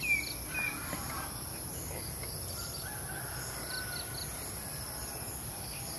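Outdoor ambience: a steady high-pitched insect drone, with a quick run of short, falling bird calls in the first second and a few fainter calls a few seconds in.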